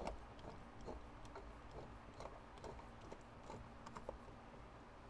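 Faint, irregular light clicks and taps of metal on metal as the Winchester Model 42 shotgun's buttstock is fitted and tightened onto the receiver.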